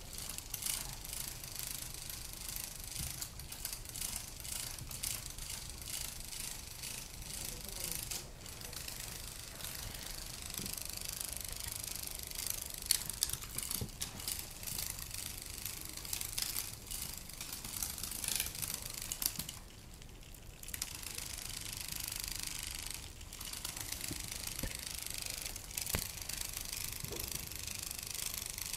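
Battery-powered moving butterfly cat toy running, its motor and gears giving a fast, steady clicking rattle. It goes briefly quieter about twenty seconds in.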